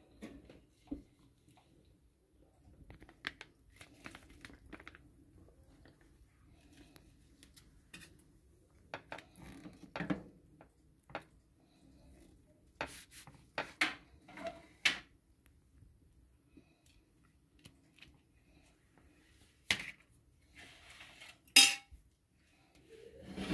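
Metal spoon tapping, scraping and clinking against a ceramic plate while spreading sauce on a flatbread, in scattered light clicks. A sharper clink with a brief ring comes a little before the end.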